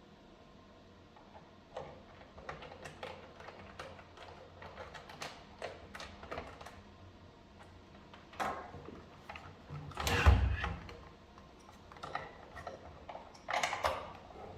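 Irregular small clicks, taps and knocks of hard parts being handled and fitted together, with a heavier thump about ten seconds in and another cluster of knocks near the end.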